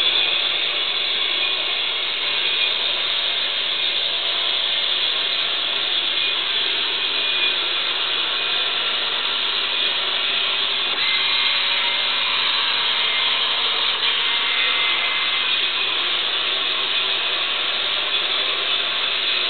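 Homemade Arduino-controlled robot running on a wooden floor: a steady mechanical whirr from its small electric motors, with faint steady tones through it and no pauses.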